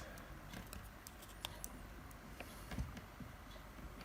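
Faint, scattered small clicks and scrapes of a tool prying at the plastic front panel of a Nokia 6150 mobile phone to work a plate and display glass loose.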